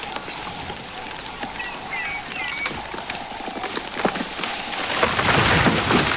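A large tree pushed over by an elephant bull cracking and crashing down, with branches snapping, loudest about five to six seconds in. A few short bird chirps about two seconds in.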